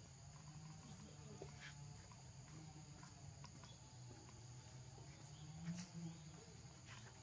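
Faint, steady insect chorus, heard as two even high-pitched tones, over a low background hum, with a few soft ticks.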